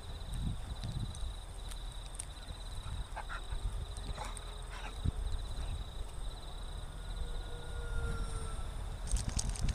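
Wind buffeting the microphone in low gusts, under a steady high-pitched insect trill. At times the faint whine of the model plane's small electric motor is heard as it flies past.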